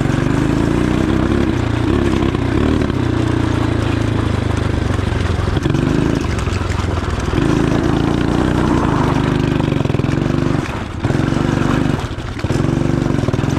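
Shineray 250cc motorcycle engine running at idle, its pitch wavering slightly, with two short dips in level near the end.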